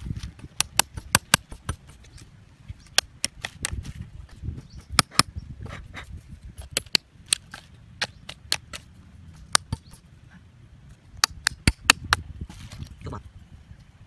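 Sharp taps and knocks of a small metal hatchet striking a nail and a plastic PVC pipe, in quick runs of several strikes with short pauses between.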